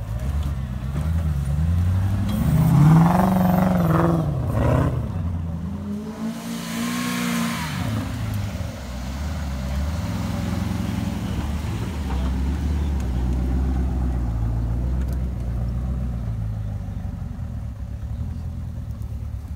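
Engines of Land Rover-based off-road trial vehicles revving and running as they crawl over rough ground. The revs rise and fall several times in the first few seconds, then settle to a steady low running note.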